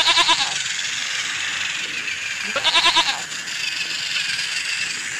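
Goat bleat sound effect from a battery-powered toy Thomas train pulling a goat wagon, heard twice, at the start and about two and a half seconds later. In between, the toy's motor and wheels whir steadily on the plastic track.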